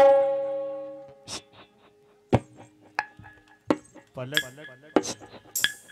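The last held notes of the qawwali accompaniment fade out over the first second. Then comes a slow run of sharp, lightly ringing taps, about one every two-thirds of a second.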